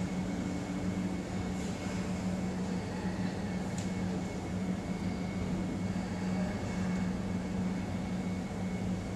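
Steady low electrical hum with an even background hiss, with a faint click about four seconds in.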